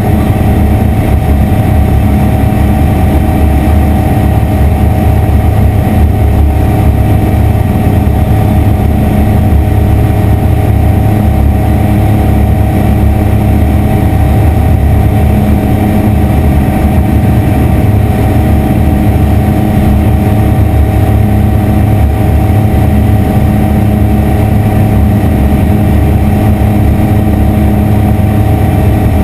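Aeroprakt ultralight's piston engine and propeller droning steadily at cruise power, heard from inside the cockpit.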